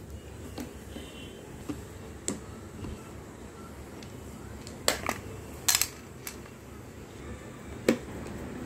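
Hands handling the plastic back panel of a large retro radio: scattered clicks and knocks, about eight in all, the loudest a quick cluster about five to six seconds in, over a low steady room hum.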